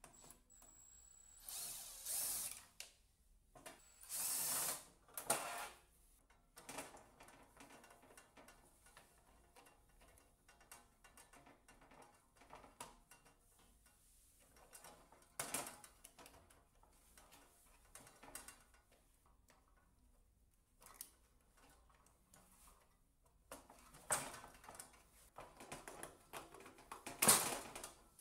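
A 12 V cordless drill-driver with a flexible shaft extension running in short bursts to drive out the screws holding a radiator's control board. There are three bursts in the first six seconds and a few more near the end, with small clicks and rattles of the board and screws being handled in between.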